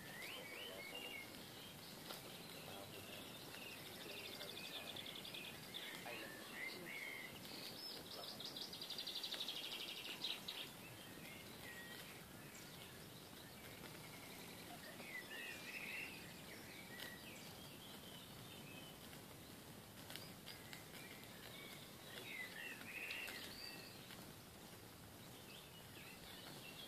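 Wild birds chirping and singing over a faint, steady outdoor background noise, with one rapid trill about a third of the way through.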